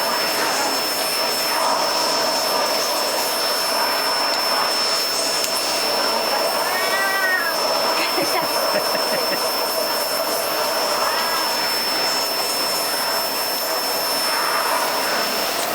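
Vacuum cleaner running steadily with a constant whine, while a cat meows over it twice, about halfway through and again a few seconds later, the second call fainter.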